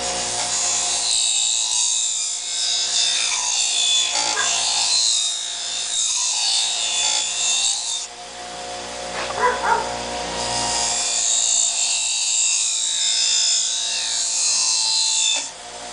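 Electric sharpener motor running steadily while work is pressed against its spinning polishing wheel as rouge goes on, giving a harsh scraping hiss in two long stretches with a short break about 8 seconds in.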